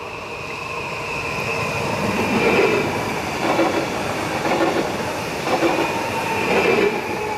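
A Stadler FLIRT passenger train passing close by at a level crossing, getting louder over the first two seconds. Its wheels clatter over the rail joints about once a second over a steady high whine.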